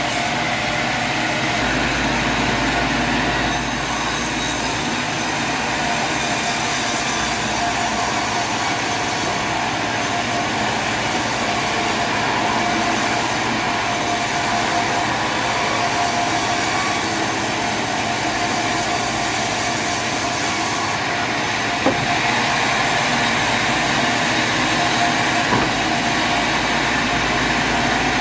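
Sawmill machinery running steadily: a loud, even mechanical noise with a steady high whine over it, and a single sharp knock about three-quarters of the way through.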